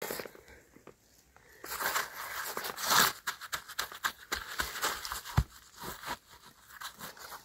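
Gloved hands scraping and clearing gritty soil and small stones from around the edges of a flat stone slab set in the ground. It is a run of irregular gritty scrapes and crunches, busiest about a third of the way in, with a single dull knock about three-quarters of the way through.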